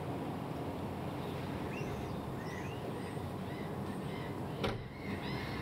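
Steady low rumble, with a few faint high bird chirps about two seconds in and a single sharp click near the end.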